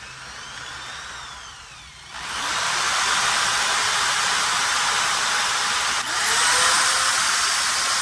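Cordless power drill, its chuck wrapped in rubber bands, spinning a VDO speedometer's odometer gears backwards to wind the mileage down. For the first two seconds it whirs more quietly, rising and falling in pitch. Then it gets suddenly much louder and runs as a steady high whir.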